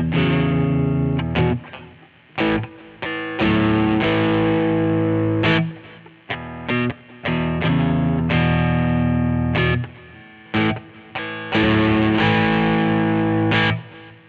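2003 Godin SD 24 electric guitar played with heavy distortion: held chords that ring for a second or two each, broken up by short, choked stabs. The playing stops just before the end.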